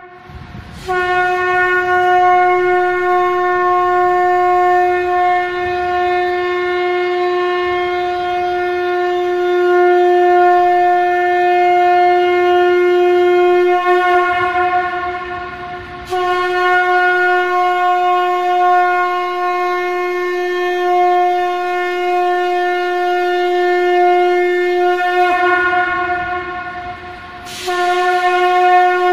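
Conch shell (shankh) blown in long held blasts on one steady, bright note. The note weakens briefly about halfway through and again near the end, then sounds out strong once more.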